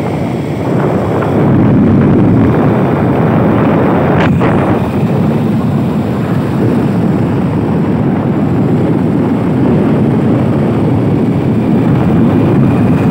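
Steady rumble of a moving vehicle mixed with wind noise on the microphone, with one sharp click about four seconds in.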